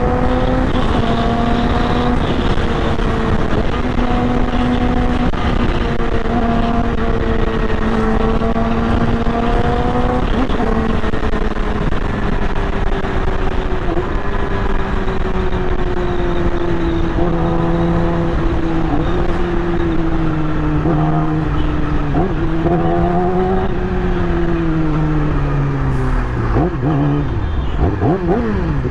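2020 Yamaha YZF-R6's inline-four engine running under way at steady revs, its pitch easing lower through the middle, then rising and falling quickly several times near the end as the throttle is worked.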